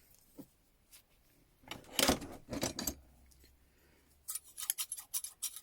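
Loose metal hand tools clinking and clattering as they are handled and set down, with a burst of knocks about two seconds in and a quick run of light metallic clicks and jingles near the end.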